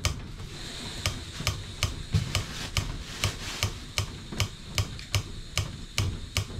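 Piezo igniter of a gas canister stove clicked over and over, about three sharp clicks a second, while the stove fails to light. The hikers suspect the high altitude is keeping the igniter from sparking.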